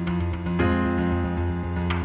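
Background music: sustained keyboard chords over a steady low bass, with a new chord coming in about half a second in.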